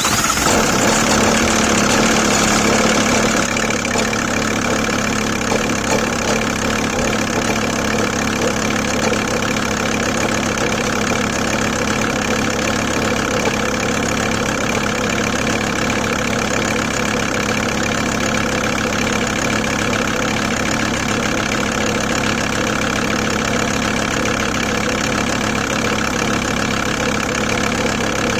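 The five-cylinder 2.5 TDI diesel of a 2002 VW T4 idling cold just after starting, with an intermittent rattle, a 'rattling/mulching' sound, that the owner places in the top end of the engine or perhaps the timing belt side. Its cause is unknown: the timing belt, rollers, water pump, alternator and fuel pump belt have already been replaced.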